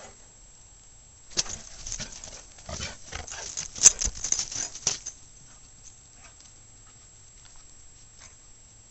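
A dog's paws crunching and scuffing in snow close to the microphone: a flurry of crunches and rustles from about a second and a half in until about five seconds, with one sharp knock near four seconds, then only faint patters.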